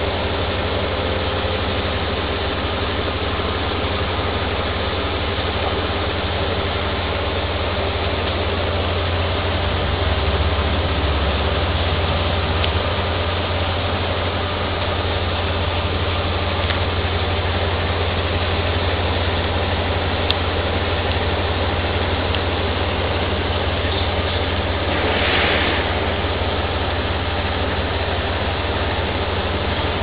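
Engine running steadily with a constant low hum and a droning wash of noise over it. A brief hiss rises and fades near the end.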